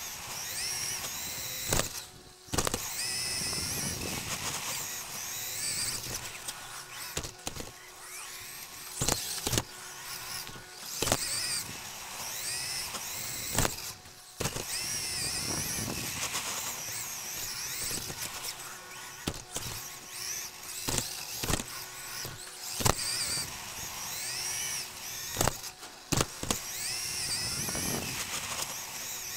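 Xray XB2 2WD buggy's 13.5-turn stock brushless motor and drivetrain whining up and down in pitch with the throttle, heard from a camera mounted on the car. Tyre rumble on the carpet track, with many sharp knocks from bumps and landings.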